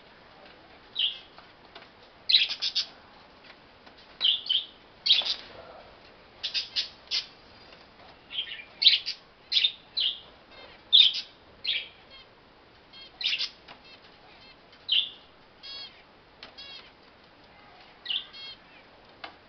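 Caged finches giving short, sharp chirping calls, dozens of them in an irregular scatter, now and then run together into quick stuttering series.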